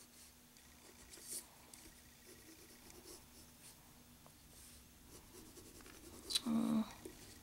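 Graphite pencil scratching lightly on paper in short strokes, shading and touching up a drawing. A brief, louder low-pitched sound comes near the end.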